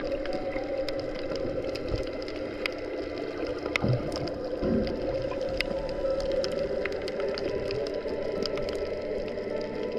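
Underwater ambience over a coral reef, picked up by a submerged action camera: a steady muffled hum with many scattered sharp clicks throughout.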